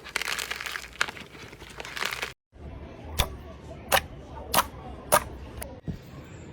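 Crunchy slime being squeezed and crushed with dense crackling. After a sudden cut about two seconds in, four sharp clicks follow about half a second apart as the slime is pressed.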